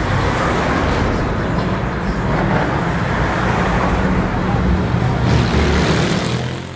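Slow cruising traffic passing close by: car engines running low and steady under a haze of tyre and road noise, a little louder about five seconds in.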